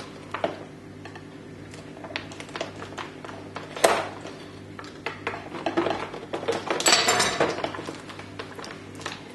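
Toy packaging being cut and handled with a kitchen knife: scattered clicks and knocks of plastic and cardboard, a sharp snap about four seconds in, and a stretch of crinkling plastic and paper around seven seconds, over a steady low hum.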